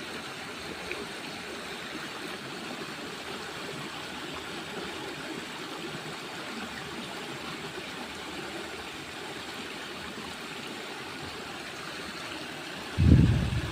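Steady rush of a flowing stream. Near the end, a brief low thump, much louder than the water.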